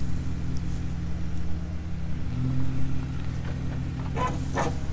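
A vehicle engine running at low revs, its note rising a little about two seconds in.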